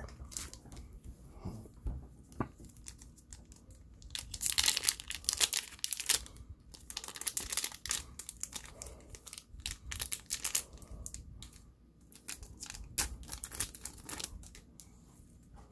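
A trading-card booster pack's shiny wrapper being torn open by hand and crinkled, in irregular bursts of tearing and crackling, loudest from about four seconds in and again briefly near the end.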